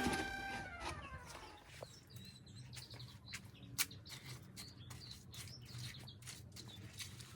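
Background music dies away in the first second, leaving outdoor birds chirping now and then, scattered sharp clicks and taps (one louder snap near four seconds in) and a faint steady low hum.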